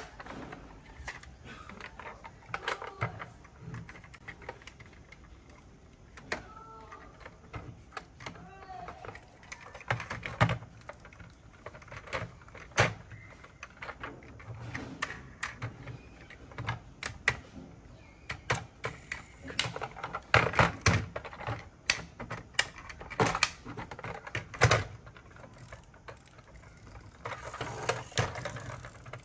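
Irregular clicks, taps and knocks of a die-cast toy pickup truck and camper trailer being handled, hitched together and set down on a table.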